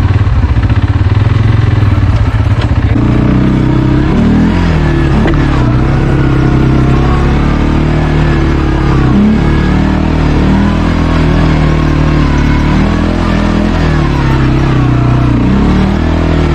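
ATV engine idling with a low, even pulse, then pulling away about three seconds in, its revs rising and falling again and again with the throttle.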